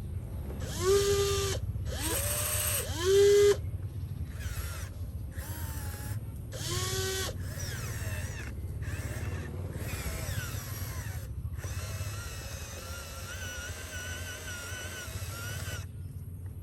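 A small electric motor whining in short bursts, each spinning up with a quick rising pitch and then holding steady, over a steady low rumble. The bursts start and stop abruptly.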